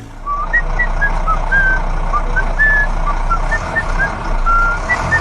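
Truck engine running with a steady low rumble, with a dozen or so short, high chirps at varying pitches scattered over it.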